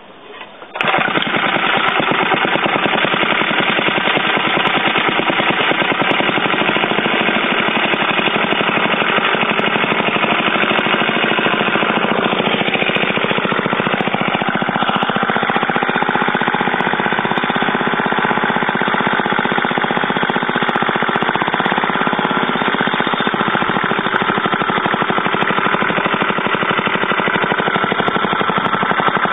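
Old small engine catching on a pull of its starter rope about a second in, on a cold start, then running loud and steady.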